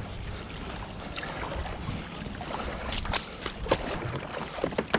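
Paddling a small boat: splashes and knocks of the paddle in the water and against the hull, more frequent in the second half, over a steady low wind rumble on the microphone.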